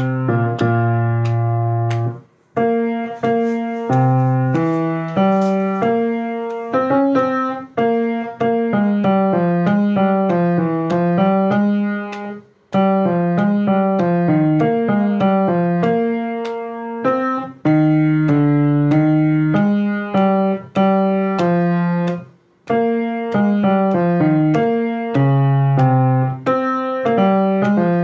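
Piano playing a slow passage of struck chords under a moving melody line, pausing briefly about two and a half, twelve and a half and twenty-two and a half seconds in.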